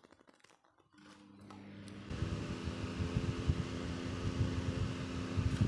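Small electric desk fan switched on about a second in, its motor hum rising as the blades spin up, then running steadily with an uneven low rumble of moving air. It runs smoothly, no longer rough, with oil freshly put on its motor shaft.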